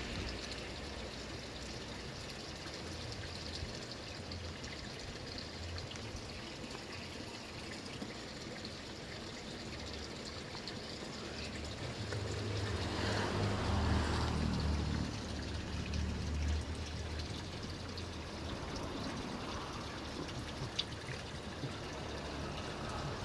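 Water trickling and running steadily, with a low rumble underneath that swells for a few seconds about halfway through.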